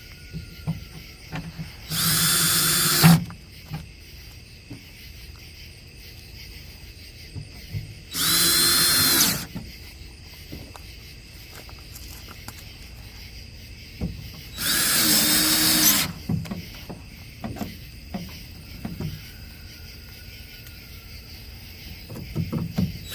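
Power drill driving screws in short bursts of about a second and a half, three times, with a fourth starting near the end. The motor's whine bends in pitch as each screw seats. Small clicks and taps come between the bursts.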